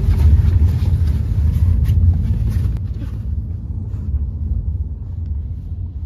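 A car driving, heard from inside the cabin: a steady low road and tyre rumble. It is heaviest for about the first three seconds, then eases somewhat.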